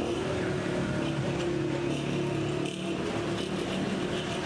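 A motor-vehicle engine running steadily close by, over general street traffic noise, with a low steady hum.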